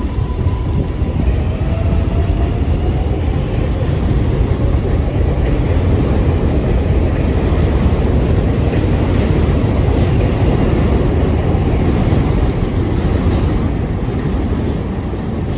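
A 7 line subway train running on the elevated track: a loud, steady rumble, with a faint rising whine in the first few seconds.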